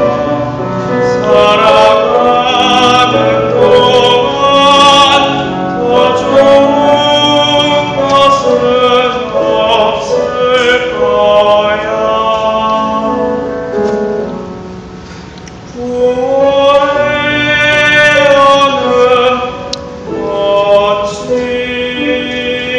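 A teenage boy singing a Korean art song in classical style over instrumental accompaniment, with vibrato on long held notes. The voice drops away briefly about two-thirds of the way through, then comes back on a held note.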